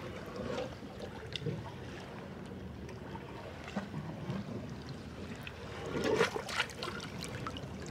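Shallow water trickling and dripping as a pantyhose bait bag is worked at the surface of a stony pool, with a few light splashes about six seconds in as it is lifted out.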